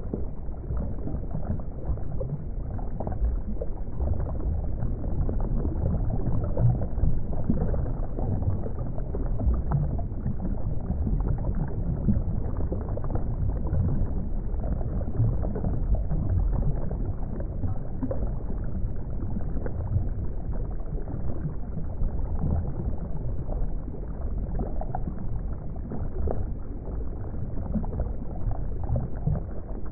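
Steady low rumble of churning, bubbling water, like an underwater or aquarium water ambience, with no clear separate events.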